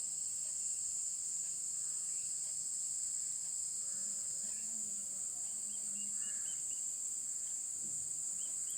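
Steady high-pitched chirring of crickets in the background, unchanging throughout.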